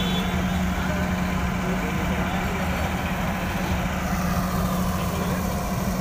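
Steady low engine hum running without change, with a faint murmur of voices.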